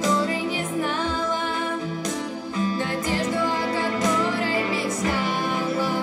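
A girl singing a slow song into a microphone, holding long notes with vibrato, over instrumental accompaniment.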